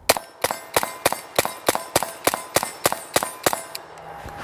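AR-pattern 7.62x39 rifle fed from an AK magazine, fired rapidly in semi-auto: about a dozen shots at roughly three a second, each with a short ringing tone after it. The string stops about three and a half seconds in.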